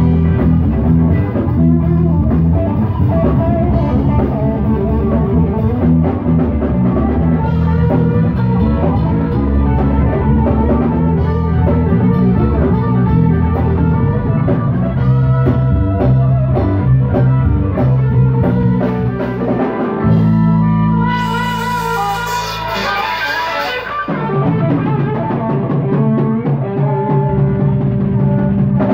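Live rock band playing: an electric guitar and a Pearl drum kit, with a harmonica blown into a cupped microphone. About 20 seconds in, the band holds one chord under a cymbal wash for a few seconds before the groove starts again.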